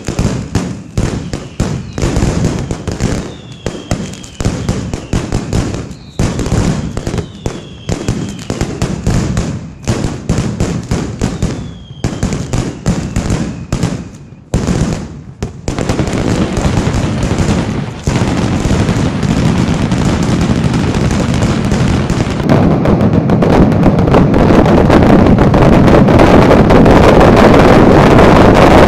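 Mascletà firecrackers going off at ground level in rapid, irregular volleys, with a few falling whistles among the bangs. About halfway through the bangs merge into one continuous din that keeps growing louder and is loudest near the end, the mascletà's finale.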